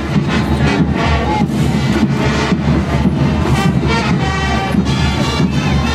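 Band music for a parade dance: a melody of held notes over repeated drum strokes.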